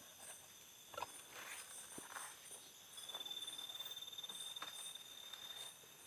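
Night insects trilling faintly, with a high, steady pulsing cricket-like trill setting in about halfway through and a few faint clicks.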